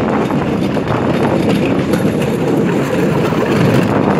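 Bamboo train (norry) running along the rails: a steady, loud rumble from its small engine and wheels on the track, with wind buffeting the microphone.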